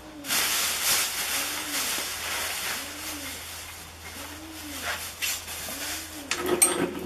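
Loud rustling of a plastic bag being handled and rummaged through, fading out about halfway, followed by a few light knocks near the end.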